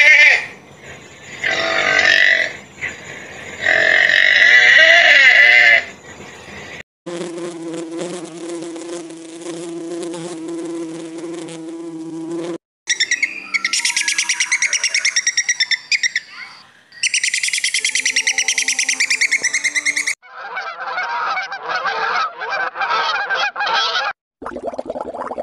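A run of short animal-sound recordings spliced together with abrupt cuts, about six in turn, including insect-like buzzing and rapid pulsing calls.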